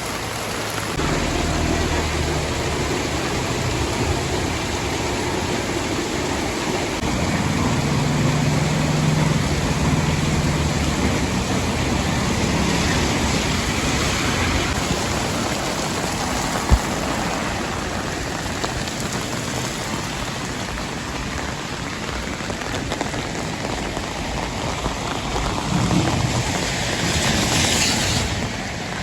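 Steady heavy rain falling, with a vehicle engine running low underneath for the first part. There is a single sharp click partway through and a brief louder hiss near the end.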